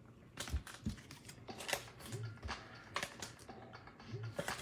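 A string of light, irregular clicks and taps, as of hands working at a table or keyboard.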